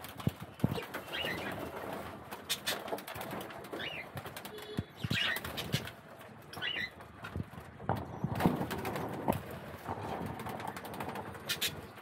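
Budgerigars bathing at a water bowl: bursts of wing-fluttering and splashing, with about four short chirps spread through.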